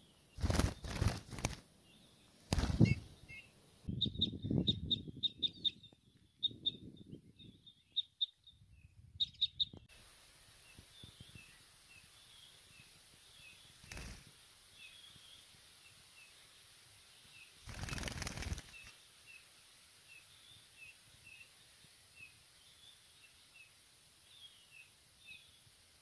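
A small songbird held in the hand beating its wings in short flurries: several near the start and one longer flurry about two-thirds through. Quick series of high chirps from small birds come in between, and faint calls run throughout.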